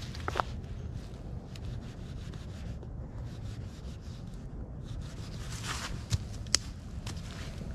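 Sticks and brush rustling and scraping as sticks are gathered and handled, with a few sharp cracks, two of them about six seconds in. A steady low rumble of wind runs underneath.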